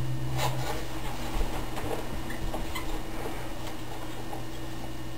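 Steady low electrical hum under faint rustling and soft handling noises from a small white packet.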